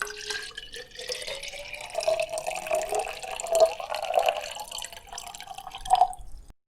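Water poured in a steady stream into a drinking glass, splashing and gurgling. The tone rises gradually as the glass fills, then cuts off suddenly near the end.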